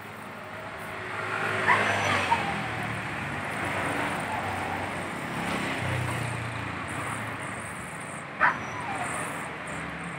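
Gas welding torch hissing steadily as a motorcycle exhaust pipe seam is welded with filler rod. Two sharp, brief high sounds cut through it, a couple of seconds in and again near the end.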